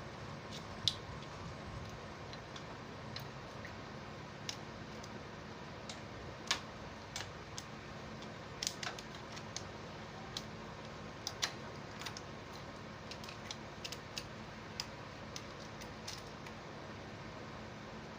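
Irregular light metallic clicks and taps of hand tools and engine parts being handled while a motorcycle engine's timing chain is set to its marks, over a faint steady hum.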